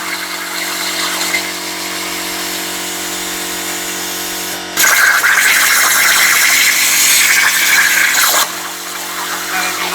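CNC plasma cutter: a steady electrical hum runs throughout, and the plasma arc comes on sharply about five seconds in with a loud, high hiss as it cuts steel, then cuts off suddenly a little after eight seconds.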